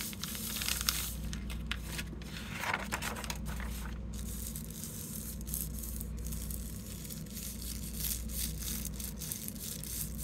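Paper and thin art tissue rustling and crinkling under a hand rubbing and pressing them against a gel printing plate, in many short strokes, with a longer swishing rustle about two and a half seconds in. A steady low hum runs underneath.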